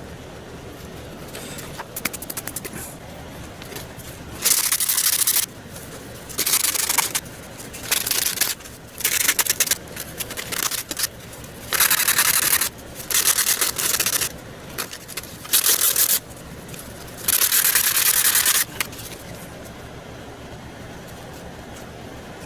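About eight short bursts of steady hissing, each starting and stopping sharply and lasting from half a second to a second and a half, with short gaps between them.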